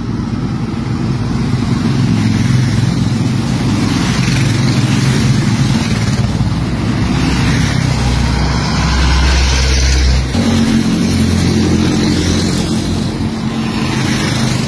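A convoy of vehicles drives past: motorcycles, a bus and pickup trucks, their engines running steadily. The engine sound changes abruptly about ten seconds in.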